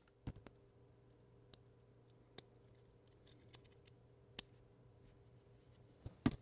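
Plastic clips on a Samsung Galaxy A51's frame snapping into place as the parts are pressed together by hand: scattered sharp clicks a second or two apart, with two close together near the end.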